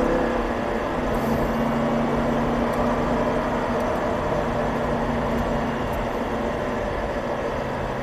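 Audi R8's V10 engine heard from inside the cabin on track, its note climbing briefly at the start and then settling to a steady lower drone under road and tyre noise.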